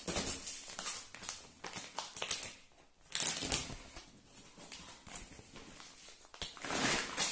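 Clear plastic packaging of a bed-linen set crinkling and rustling as hands handle and open it, in irregular crackles that are loudest a little after three seconds in and again near the end.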